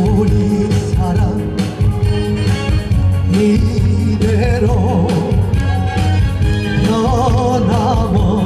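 A male vocalist sings a Korean ballad live into a handheld microphone over instrumental accompaniment, holding notes with a wide vibrato in the second half.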